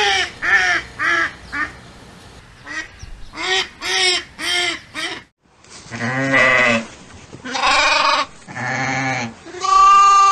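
Bleating from goats or sheep: first a run of short calls, each rising and falling, about two a second. Then, after a brief gap, come four longer drawn-out bleats.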